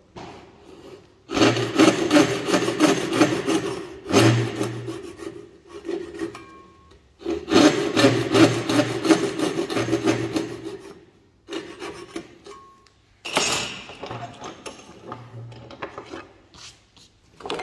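Japanese-style hand saw cutting across a wooden board in rapid back-and-forth strokes, in several bursts of a few seconds each with short pauses between them. The cuts are kerfs about 1 cm apart, which will then be chiselled out to form a groove.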